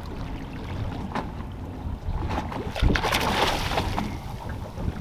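Wind rumbling on the microphone, and about three seconds in a burst of splashing as a hooked Spanish mackerel thrashes at the surface while being lifted from the water.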